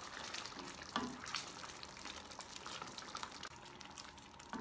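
Wooden spoon stirring a thick, creamy paneer curry in a stainless steel pan, with soft, irregular scrapes and taps.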